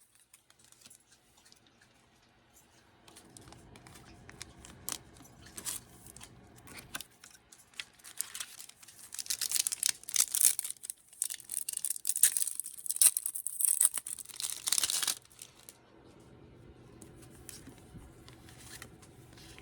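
A Pokémon trading-card booster pack wrapper being crinkled and torn open by hand. It starts as soft rustling and turns to a dense run of sharp crackling tears from about eight to fifteen seconds in, then drops back to light rustling.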